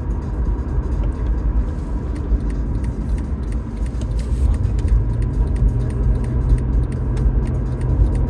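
Steady low rumble of a car's engine and tyres, heard from inside the moving car.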